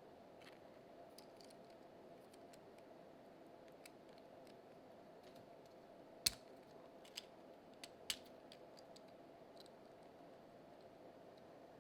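Near-silent room tone with a faint steady hum. Scattered light, sharp clicks and taps break through, the loudest about six seconds in and a few smaller ones over the next two seconds.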